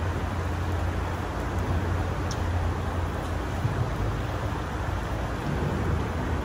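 Steady rush of a shallow gravel-bed creek flowing, with a steady low rumble underneath.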